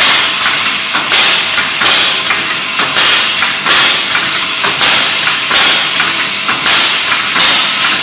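Pneumatic stapler on an automatic sofa-frame spring-clip machine firing over and over, about two sharp shots a second, each with a short hiss after it, as it staples plastic spring clips onto a wooden rail.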